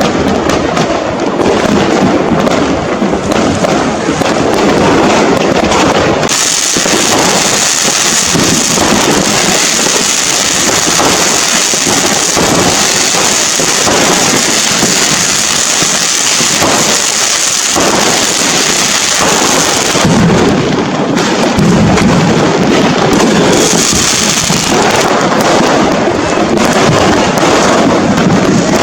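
A dense, continuous barrage of firecrackers and fireworks going off, the many blasts overlapping into a steady crackle. A brighter hissing crackle carries through the middle stretch.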